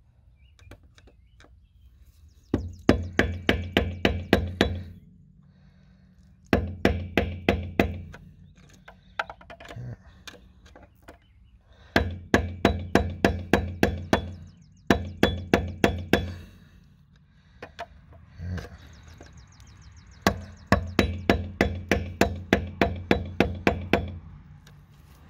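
Runs of quick, even strikes, about five a second, in six bursts with short pauses between: a flat screwdriver being hammered into the gap of a wheel lock nut's loose anti-theft sleeve to chip the sleeve away.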